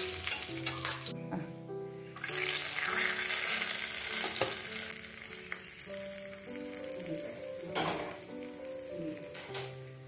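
Curry leaves and mustard seeds sizzling in hot oil in a pan, the tempering for a curry. The sizzle breaks off briefly about a second in and is fainter after about five seconds, over background music with a simple stepping melody.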